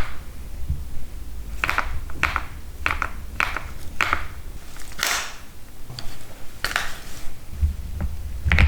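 A series of separate sharp clicks and clacks, irregularly spaced about half a second to a second apart, over a low background hum.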